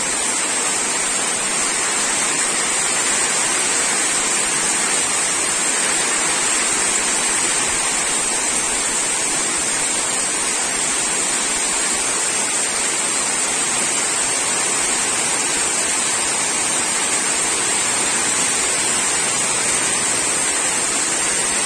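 Heavy rain pouring steadily onto a waterlogged lawn, a dense, even hiss of drops splashing into standing water. A steady high-pitched tone runs through it.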